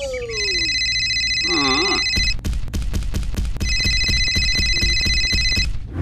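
Telephone ringing, two rings of about two seconds each with a pause of just over a second between them.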